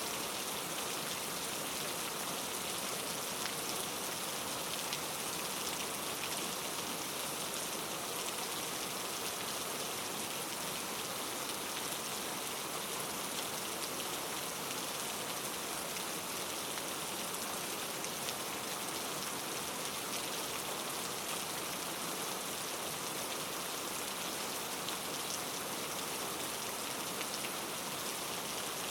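Steady rain falling, a constant even hiss with many fine drop patters.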